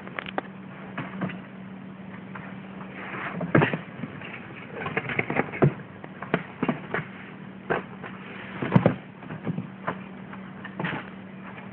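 A kitten's paws and claws batting, scratching and scrabbling at a cardboard box, making an irregular run of scrapes, rustles and knocks. The loudest knocks come about three and a half seconds in and near nine seconds.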